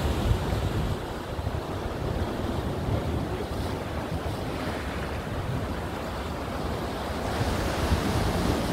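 Sea waves breaking and washing against rocks along a rocky shoreline, a continuous rush of surf that swells a little near the end, with wind buffeting the microphone.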